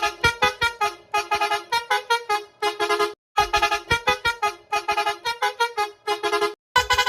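A horn sound effect playing a quick staccato tune of honked notes, about six a second. The phrase repeats about every three and a half seconds, with a brief silent break between repeats.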